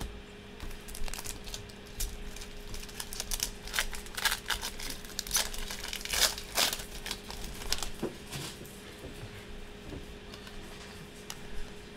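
A foil trading card pack being torn open and crinkled by hand: a string of short crinkles and rips, busiest in the first half and thinning out after about eight seconds.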